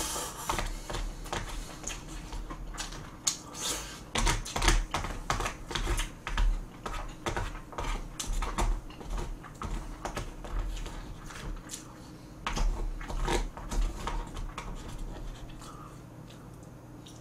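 Eating sounds: a spoon and chopsticks clicking and scraping against plastic takeout containers while kimchi fried rice is scooped up and chewed, in a quick irregular patter that thins out near the end.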